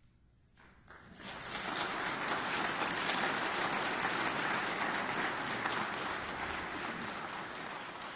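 Audience applauding, breaking out about a second in and building quickly to a dense, steady clapping that eases slightly near the end.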